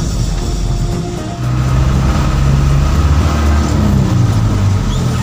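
Truck engine running while driving in gear, heard from inside the cab: a steady low drone that grows louder about a second and a half in.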